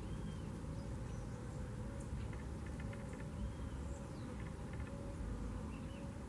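Steady low outdoor rumble with faint, scattered high chirps and ticks throughout.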